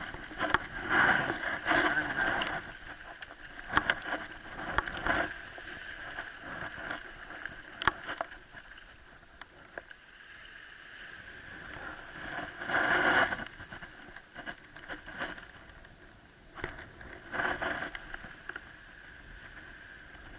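Water sloshing and splashing in irregular swells, with a few sharp clicks in between.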